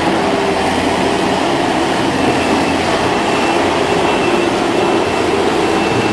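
Skid steer loader running: a loud, steady engine and machine rumble with no breaks.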